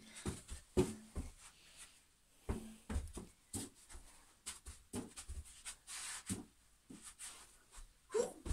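Irregular soft thumps and taps of a party balloon being kicked and batted to keep it in the air, mixed with shuffling steps.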